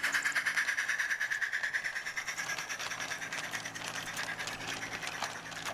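Radio-controlled garden-railway model locomotive hauling a train of small skip wagons along 45mm gauge track: its gearing and wheels give a rapid, even clicking that slowly fades as the train moves away.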